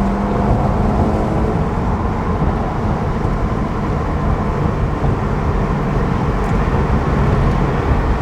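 Subaru WRX driving noise heard from inside the car: a steady low rumble of tyres and engine on a rough road. A steady hum fades out about a second and a half in.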